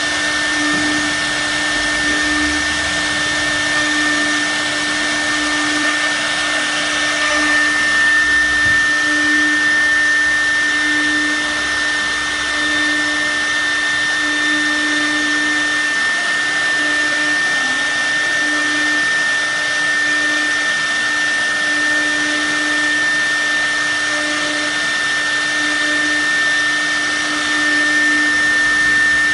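CNC router's electric spindle running steadily: a constant high-pitched whine over a lower hum and an even rushing of air.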